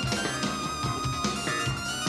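Jazz fusion band playing live: a keytar synthesizer plays sustained notes over a steady drum beat.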